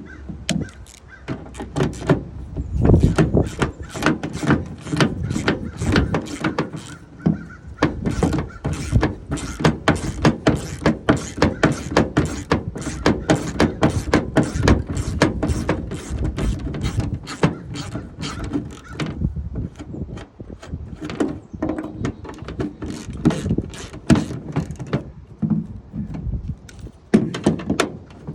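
3/8-inch ratchet with a 13 mm socket clicking rapidly as it turns out the tailgate handle bolts, about three or four clicks a second, stopping briefly a few times.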